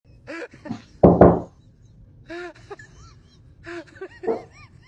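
A loud double knock about a second in, along with several short, high-pitched squeaky calls.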